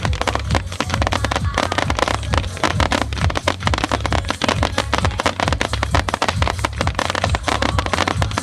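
Aerial fireworks going off in rapid succession, a dense run of bangs and crackles with booming low rumble throughout.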